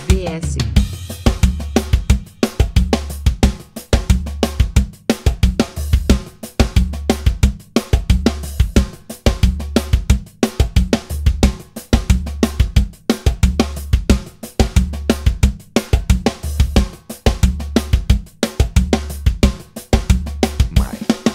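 Drum-kit loop playing a vanera (vaneira) sambada groove at 90 bpm, its pattern repeating about every two and a half seconds.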